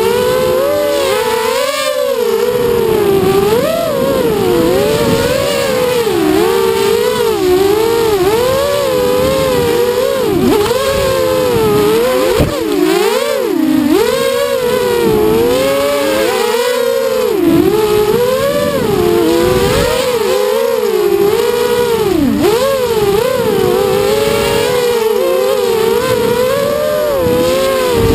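FPV quadcopter's electric motors and propellers whining, heard close on the onboard camera, the pitch rising and falling constantly with the throttle.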